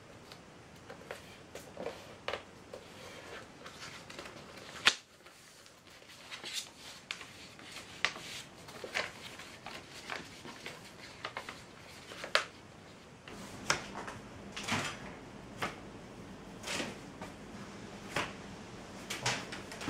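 A sheet of printer paper being folded and creased by hand into a paper plane: irregular short crackles, taps and rustles, with one loud sharp snap about five seconds in. From about two-thirds of the way through, a faint steady low hum runs under the clicks.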